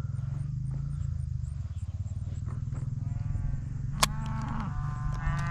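Cattle mooing: a short moo about three seconds in, then a longer one that starts after four seconds and runs past the end, over a steady low rumble. A single sharp click sounds just before the second moo.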